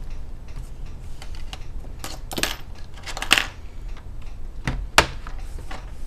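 Plastic snap clips of an HP 15 laptop's palm rest clicking as it is pried off the base with a plastic card: a string of sharp clicks, the loudest about five seconds in.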